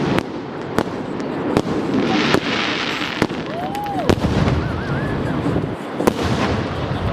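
Fireworks going off: a rapid series of sharp bangs, a burst of crackling hiss about two seconds in, and a short whistle that rises and falls near the middle.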